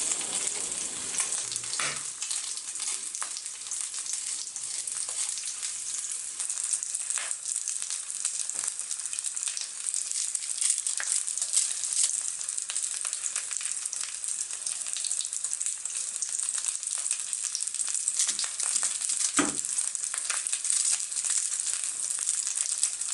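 Chicken frying in a pan: a steady, high sizzle with constant crackling. A single knock about three-quarters of the way through.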